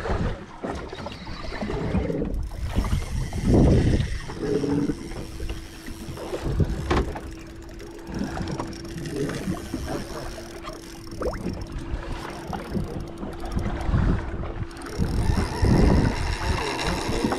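Wind and water noise on a small fishing boat at sea, with irregular low rumbles and knocks. A steady low hum comes in about five seconds in and stops near the end.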